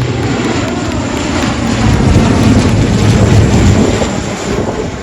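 Helicopter flying close overhead, a loud steady rotor and engine din that swells about two seconds in and eases slightly near the end.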